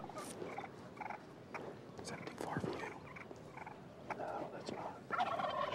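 Rio Grande wild turkey gobblers gobbling, several birds calling in short rattling bursts one after another, loudest in a dense stretch near the end.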